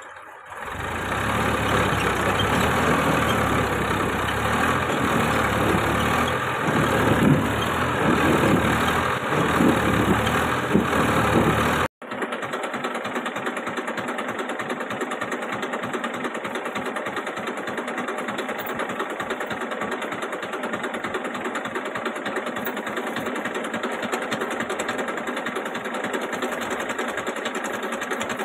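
Massey Ferguson 1035 DI tractor's three-cylinder diesel engine running hard, its loudness rising and falling; after a cut about twelve seconds in, a steady rapid diesel clatter as it idles.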